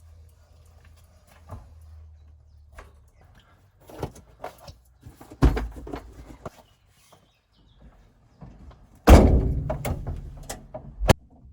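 A series of knocks and clicks over a faint low hum, with a heavy thud about five and a half seconds in and a louder thump about nine seconds in that rings on for a second or two.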